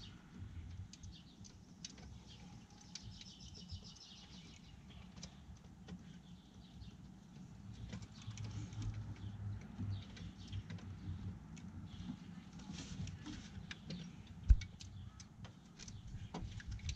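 Faint hand-tool sounds from undoing an alternator's mounting bolts: scattered clicks and metal clinks, with a run of quick ratchet-like ticks early on and one sharper knock about three quarters of the way through.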